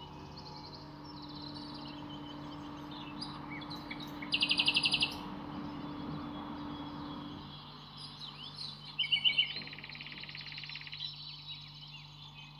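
Songbirds singing, with a fast, evenly pulsed high trill about four seconds in and another about nine seconds in, and scattered short chirps. A faint low steady hum runs beneath and stops about halfway through.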